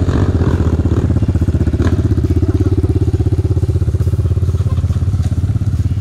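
Single-cylinder 250cc enduro motorcycle engine idling steadily close by, with a fast, even pulsing beat.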